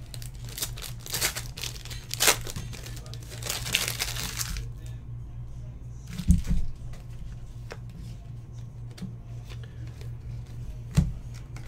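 Plastic card-pack wrapper crinkling and tearing as it is opened, for the first four and a half seconds, then a thump about six seconds in and another near the end.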